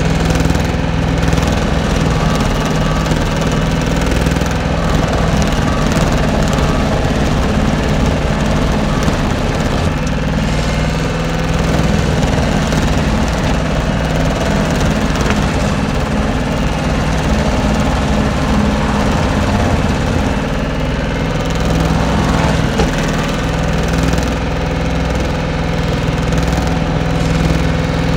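Skid-steer loader's diesel engine running steadily under load, driving a homemade stump grinder disc that is cutting into a stump and throwing wood chips, heard from inside the cab.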